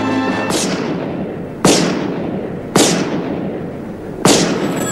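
Four shots from a .44 Magnum revolver, about a second apart, each ending in a long, fading echo.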